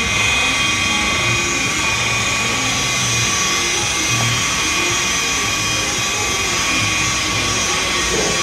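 Electric rotary polisher with a wool buffing pad running steadily, a constant motor whine as the pad buffs a plastic headlamp lens during headlamp restoration.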